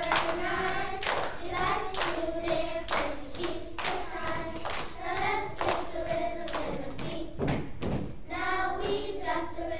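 Children's choir singing a song together, with steady hand claps keeping the beat about twice a second.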